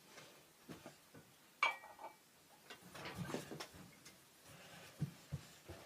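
Scattered light clicks and knocks of objects being handled, with one sharper click about one and a half seconds in and a few soft thuds near the end.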